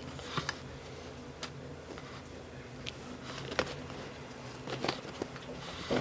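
Eating sounds from a hotpot meal: scattered soft clicks and smacks of chewing and utensils, over a steady low hum.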